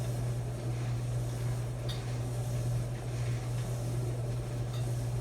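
Maytag clothes dryer running with a steady low hum.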